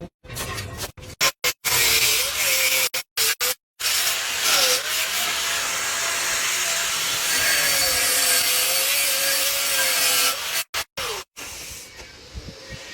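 Handheld power grinder working stainless steel: a loud abrasive hiss over a motor tone that sags and recovers as it is pressed into the work. It breaks off abruptly several times and is quieter near the end.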